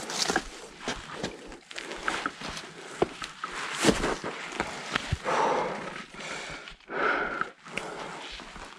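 Footsteps, rustling and snapping twigs and brush as someone makes their way through forest undergrowth and over fallen trees, with irregular cracks and knocks and a couple of louder rustling bursts about five and seven seconds in.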